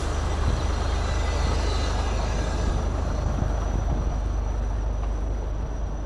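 Low rumble of a heavy vehicle in street traffic, slowly fading away.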